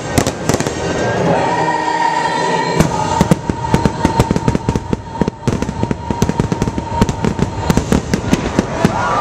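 Fireworks exploding in a rapid barrage, many sharp bangs a second and thickest in the second half, over show music holding one long note.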